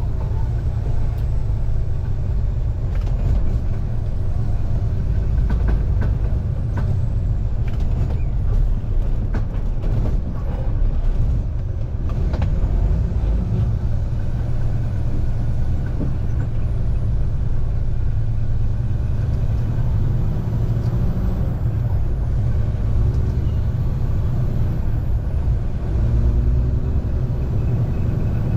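Semi truck pulling a loaded refrigerated trailer on the road: a steady low rumble of diesel engine and road noise, with a few short knocks or rattles in the first third.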